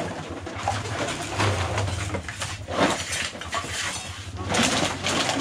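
Rustling and clattering of clothes and household junk being rummaged through and stuffed into a sack by hand, in irregular bursts, over a steady low hum.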